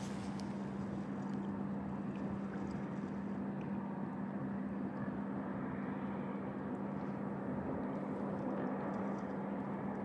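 A steady low mechanical hum holding one constant pitch, over an even wash of outdoor noise.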